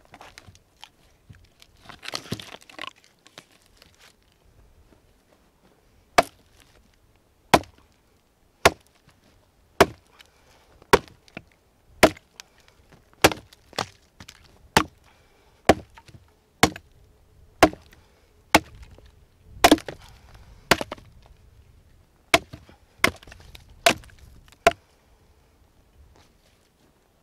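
A hatchet chopping into a dry, weathered log: about nineteen sharp strikes, roughly one a second. They are preceded about two seconds in by a short splintering crackle as wood is torn apart.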